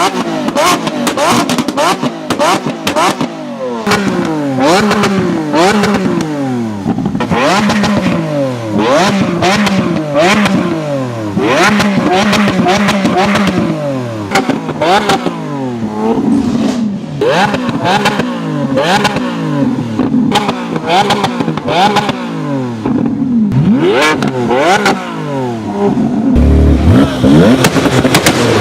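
Supercar engine revved hard again and again, its pitch rising and falling sharply, with frequent sharp cracks and pops. Near the end a deeper, heavier rumble joins in.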